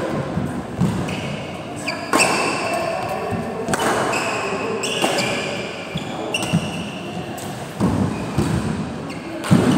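Doubles badminton rally: several sharp racket hits on the shuttlecock and the players' quick footwork on the court, echoing in a large indoor hall.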